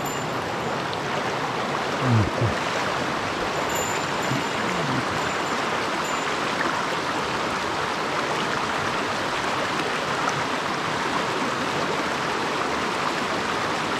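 Small mountain stream rushing steadily over rocks. A brief low, gliding sound breaks through about two seconds in.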